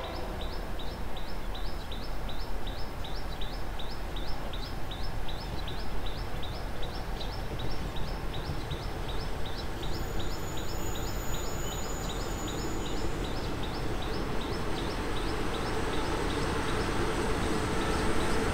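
Diesel railcar engines running at a station, with a second diesel railcar approaching and growing louder over the last few seconds. Over them, a high chirp repeats about three times a second and fades out near the end.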